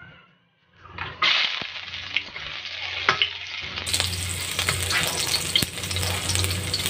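Ginger strips frying in hot oil in a wok, sizzling from about a second in, with a metal utensil clicking and scraping against the wok as they are stirred.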